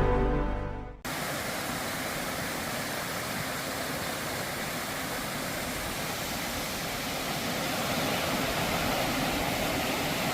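Waterfall rushing steadily, an even hiss of falling water that swells slightly in the later part. Background music fades out in the first second.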